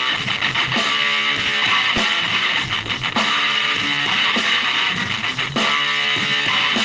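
Music led by strummed electric guitar, loud and continuous, with a regular rhythm.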